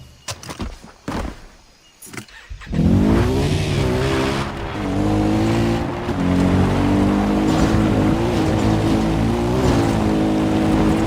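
A few short clicks, then about three seconds in a car engine starts, as in a racing video game: its pitch rises and dips, then holds steady at high revs.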